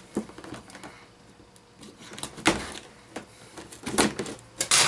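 Scissors cutting into a cardboard toy box, with several short sharp snips and crackles of card and packaging, the loudest cluster near the end.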